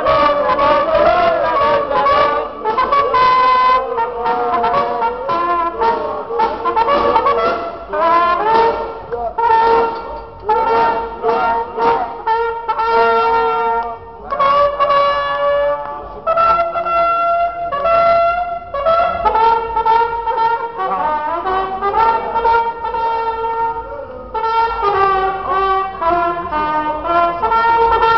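A brass horn played solo, a tune of quick short notes with a few longer held notes.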